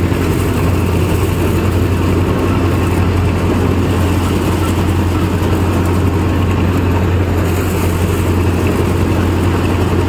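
Farmtrac 6055 four-cylinder diesel tractor engine running steadily with a deep, even hum, driving a Panesar TMC 800 tractor-mounted combine harvester while it threshes soybeans.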